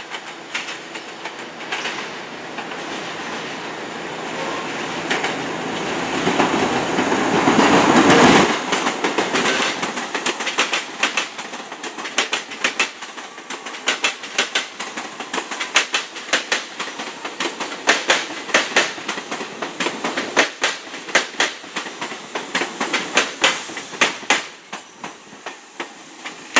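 New York City subway train of R68A cars arriving: a rushing rumble that builds for about eight seconds as it comes close, then a steady clickety-clack of its wheels striking the rail joints as the cars roll past, fading near the end.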